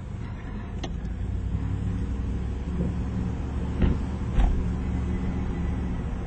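Car running along a street, engine and road noise heard from inside the cabin, with two brief thumps about four seconds in.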